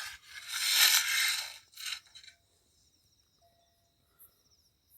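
Monitor lizard hissing in anger, a defensive threat: one long hiss of about a second and a half, then a short one about two seconds in.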